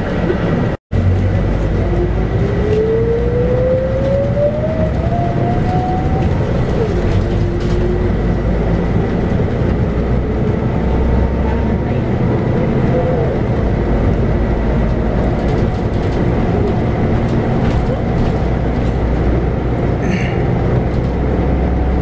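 Interior sound of a Scania K94UB bus under way: the 9-litre six-cylinder Scania DC9 diesel and ZF automatic drivetrain running with a steady low rumble. A whine rises steadily in pitch from about two to six seconds in as the bus gathers speed. The sound cuts out for an instant about a second in.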